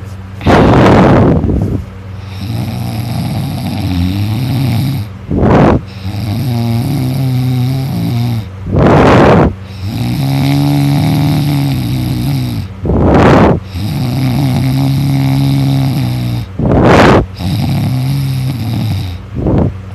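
A person snoring loudly in deep sleep. Long, wavering, droning snores are broken about every four seconds by a short, loud, hissing burst.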